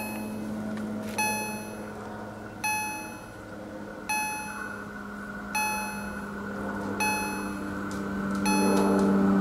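EHL-S10 electronic level-crossing warning generator sounding its gong tone, one ringing strike about every one and a half seconds, six strikes in all: the crossing's warning that a train is approaching. Under it a low steady hum grows louder near the end.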